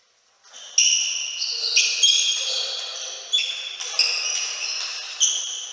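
Table tennis rally: the ball clicking sharply off bats and table, about nine hits at an uneven pace, each with a short ring and echo in the hall. The hits begin about half a second in.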